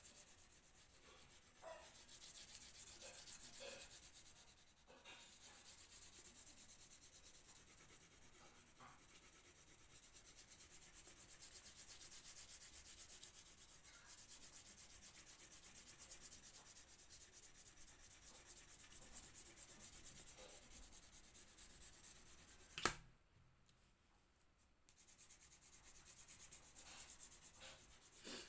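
Colour pencil shading on paper: a steady rubbing that dips briefly about five seconds in, then stops for about two seconds after a sharp tap near the end before starting again.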